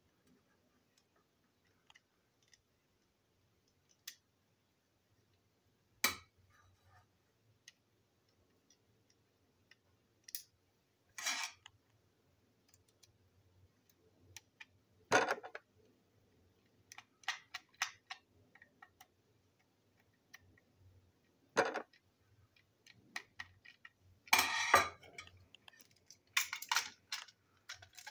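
Hard plastic parts of a battery-powered toy locomotive being handled and pried apart: scattered sharp clicks and knocks several seconds apart, with a denser run of clicks and rattles near the end.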